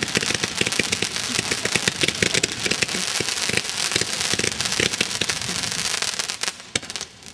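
Fireworks going off in a dense, rapid crackle of sharp pops that thins out and fades over the last second or so.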